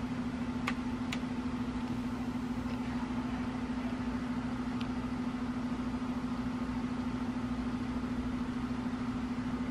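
A steady low mechanical hum, like a running motor, with a few faint clicks about a second in and once more near the middle.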